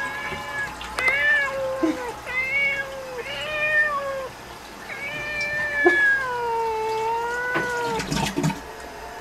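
Kitten meowing repeatedly: four meows, the last a long drawn-out one of about two and a half seconds. A few sharp knocks come near the end.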